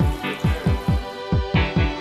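Background music with a steady electronic beat, a low kick drum about four times a second under sustained synth tones.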